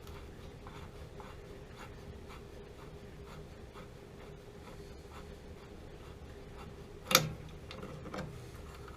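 Faint scraping and rubbing of hands and tools working on a water heater's gas valve fittings, with one sharp knock about seven seconds in. A faint steady hum sits underneath.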